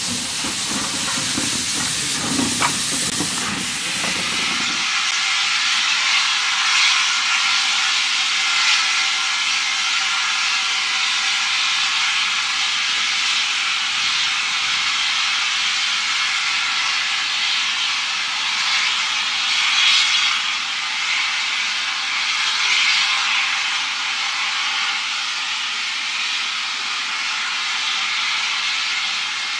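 Standing steam locomotives hissing steadily as steam escapes, with a lower rumble beside the WD 2-8-0 for the first five seconds or so. After an abrupt change, the hiss runs on steadily with two brief swells about two-thirds of the way through.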